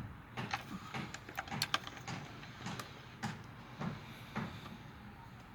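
Scattered light clicks and knocks, a few in quick succession, from small metal parts and hand tools being handled during work on an outboard motor.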